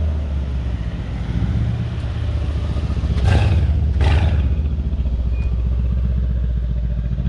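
Performance car engine idling with a deep, steady low rumble, with two short rushing bursts about three and four seconds in.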